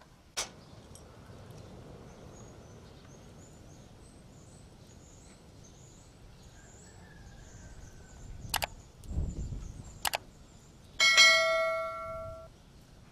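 Two sharp clicks a second and a half apart, then a bright bell ding that rings out and fades over about a second and a half. This is the sound effect of a like/subscribe/notification-bell overlay. A faint clink comes just after the start, over a quiet outdoor background.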